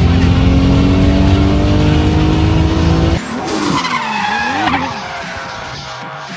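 Turbocharged car engine pulling hard under load, heard from inside the cabin, its pitch climbing steadily for about three seconds. It then cuts sharply to a drifting car, the engine revs rising and falling as the tyres squeal.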